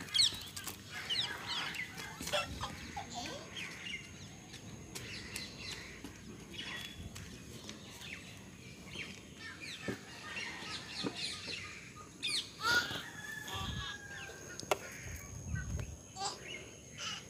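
Birds calling, many short chirps scattered throughout, over a faint steady high-pitched whine, with a few low thumps near the end.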